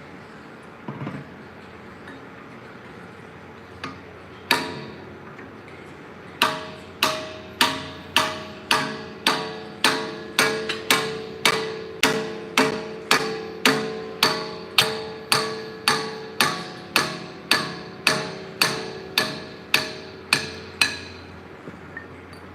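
Hammer striking metal in steady, evenly spaced blows, about two a second, each leaving a short metallic ring. A single blow comes about four seconds in, then a run of some two dozen blows starts about six seconds in and goes on until near the end.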